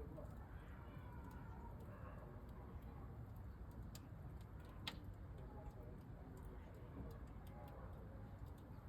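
Faint fire crackling inside a camping stove's firebox: scattered sharp ticks and pops at irregular intervals, with a louder pop about five seconds in, over a low steady background rumble.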